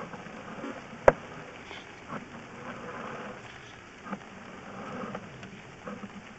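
Sewer inspection camera being pushed along its push cable up a scaled cast iron sewer line: a steady low rustle with a sharp click about a second in and a few softer knocks after it.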